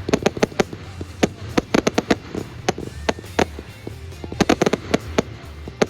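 Fireworks going off in quick, irregular bangs and crackles, several a second, with music playing underneath.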